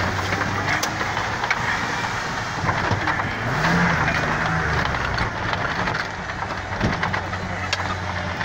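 Four-wheel-drive truck engine pulling in four-wheel low through mud. The revs rise about three seconds in and drop back about two seconds later, with mud and water spattering and ticking against the body.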